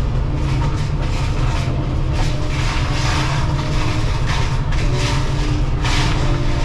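Excavator engine and hydraulics running under load, driving a Shearex VM-40 drum mulcher head at speed. Several irregular bursts of harsh crashing noise come through as the drum teeth shred wood and brush.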